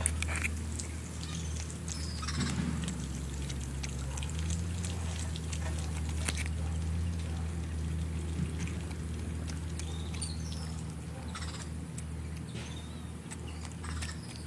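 A steady low mechanical hum, like a motor running, with scattered light clicks and a few short high chirps about two and a half seconds in and again near ten seconds.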